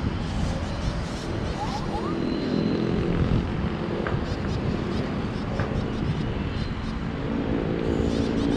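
Wind rushing over the microphone high on a steel lattice tower, with a steady low hum underneath.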